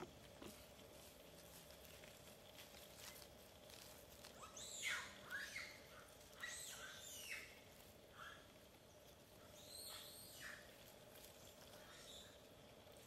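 High-pitched chirping animal calls in three short bunches, about five, seven and ten seconds in, each a quick run of squeaky notes sliding down in pitch, over a faint outdoor background.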